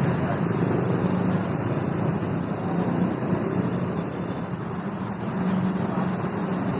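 Steady road traffic noise: engines of passing vehicles running together in a continuous low hum.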